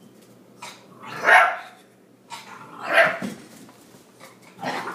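A small dog barking three times, about a second and a half apart, in play with a cat.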